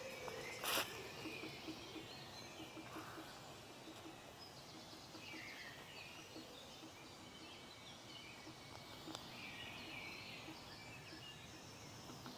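Faint outdoor nature ambience with scattered short bird calls and chirps, and a single sharp knock just under a second in.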